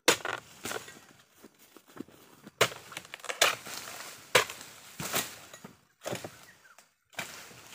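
Series of sharp chops from a pole-mounted harvesting blade cutting into an oil palm's fronds, a second or so apart at uneven intervals.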